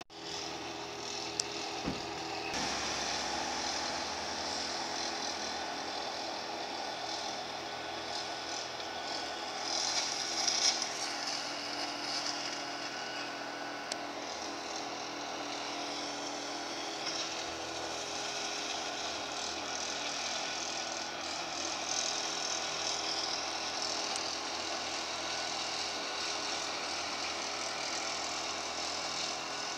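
Distant John Deere 6215R tractor's six-cylinder diesel engine and McConnell flail hedgecutter running steadily while cutting a hedge: a constant machine hum with a hiss on top. It swells briefly about ten seconds in.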